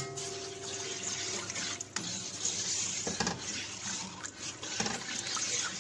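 Milky liquid swishing and sloshing as a slotted spoon stirs it round a cooking pot, with a few light knocks of the spoon against the pot.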